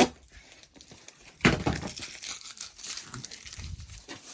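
Crinkling and rustling as craft supplies are handled and pulled from a storage bin, with a sharp knock at the start and a louder thump about a second and a half in.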